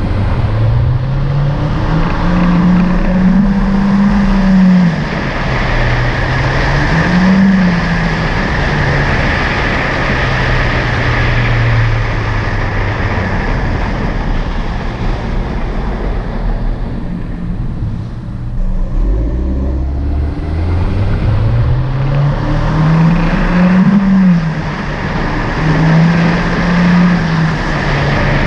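Honda Civic Hatchback Sport's turbocharged four-cylinder exhaust, heard close to the tailpipe while driving. The engine note rises in pitch under acceleration several times and drops back between pulls, over steady road and wind noise.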